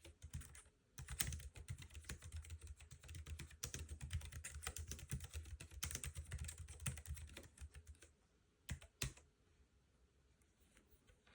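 Typing on a Keychron B1 slim scissor-switch keyboard: a fast, steady run of soft key clicks with a brief pause about a second in. The run stops around eight seconds in, followed by two separate, sharper keystrokes just before nine seconds.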